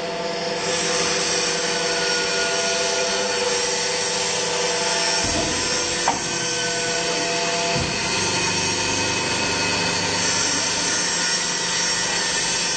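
Used-tyre bead wire pulling machine running with a steady motor whine. About five seconds in, a deeper rumble sets in, with a couple of short knocks.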